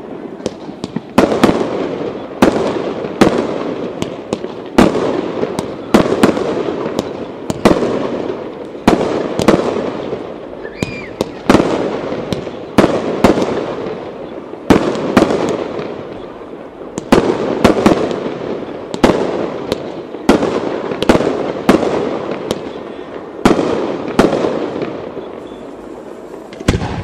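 Aerial firework shells bursting one after another, about one bang a second, some in quick pairs, each bang trailing off in echo.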